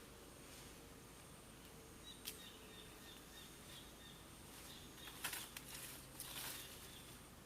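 Quiet outdoor field ambience with a faint steady high insect whine. There is a single click about two seconds in, and two short rustles a little after the middle, which are the loudest sounds.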